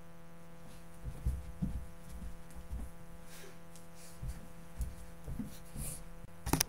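A faint steady electrical hum with scattered soft low thumps of bodies moving on the floor. A sharper knock comes near the end, close to the microphone.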